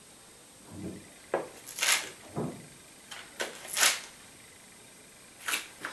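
Hands placing slices of processed cheese onto an omelette on a parchment-lined baking tray: a handful of short, separate rustles, crinkles and soft taps of paper and wrapping being handled.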